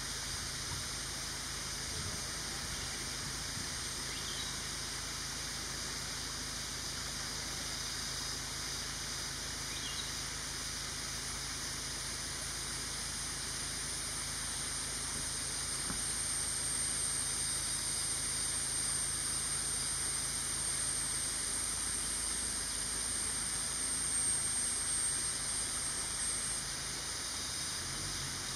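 Steady high-pitched hiss of forest insects, growing louder from about halfway through and easing off near the end.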